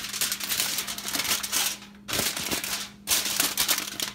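Aluminium foil crinkling and rustling as hands crumple and smooth a sheet, in two spells with a short break about two seconds in.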